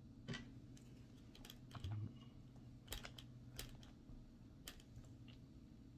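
Faint, irregular light clicks and taps of a small tool and metal parts being worked at a Traxxas Slash's rear hub while the axle pin is pressed back in, with a soft low bump about two seconds in.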